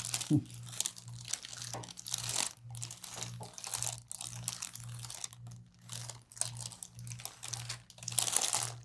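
Irregular rustling and crinkling of a person shifting and turning over onto her back on a chiropractic treatment table.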